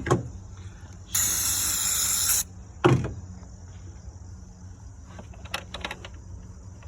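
Aerosol can of throttle body cleaner sprayed in one burst of just over a second, onto a rag for wiping carbon from the throttle body, with a sharp knock at the start and another shortly after the spray.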